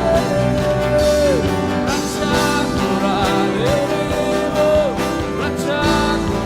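Live worship band playing an instrumental passage led by guitar, with long held melody notes that glide between pitches over the chords.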